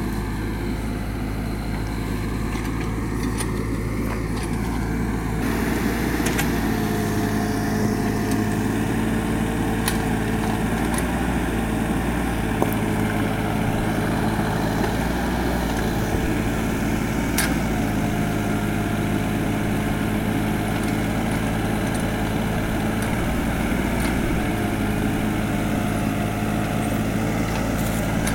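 Mini excavator's diesel engine running steadily with its hydraulics working while it digs hard laterite soil. The engine note strengthens about five seconds in, a higher tone comes and goes three times as the hydraulics take load, and a few sharp clicks break through.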